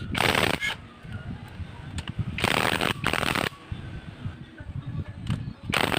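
Cordless impact wrench hammering on the engine bolts of a Suzuki Smash 115 being dismantled, in three short rattling runs: one at the start, a longer one of about a second in the middle, and a brief one near the end.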